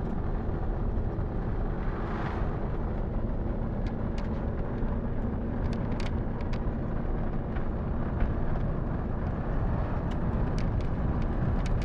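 Steady road and engine noise heard inside the cabin of a vehicle driving along a highway, with a few faint ticks.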